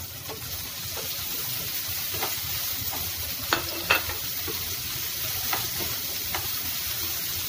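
Cockles sizzling in oil and chilli paste in a nonstick frying pan, stirred with a wooden spatula that scrapes and taps against the pan. Two sharper knocks come about halfway through.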